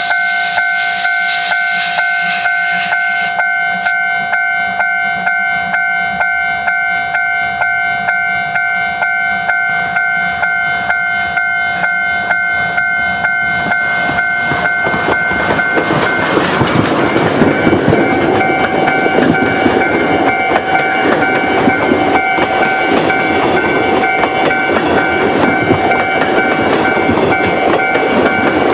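A level-crossing alarm rings in a steady, even rhythm as a steam-hauled passenger train approaches. About halfway through, the train's rolling clatter over the rails grows loud and covers much of the bell as the locomotive and coaches pass close by.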